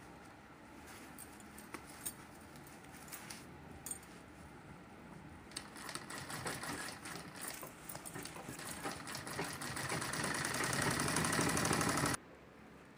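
Sewing machine stitching a seam. It runs slowly at first with a few clicks, picks up into a fast, steady run about halfway through, and stops abruptly near the end.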